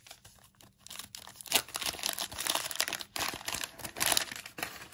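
Waxed-paper wrapper of a 1989 Topps football wax pack being torn open and crinkled by hand, a run of crinkles and rips starting about a second in.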